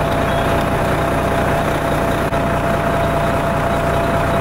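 A heavy engine idling steadily, with a thin steady whine above it.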